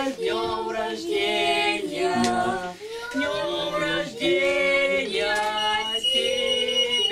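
A group of voices, women and children among them, singing a birthday song together in long held notes, phrase after phrase.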